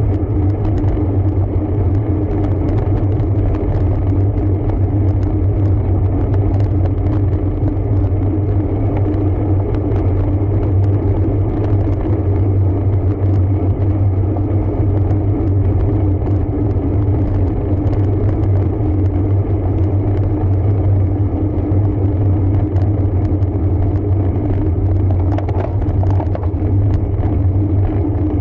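Steady rumble and wind noise of a road bike being ridden, picked up by the rider's on-bike camera, with faint scattered ticks.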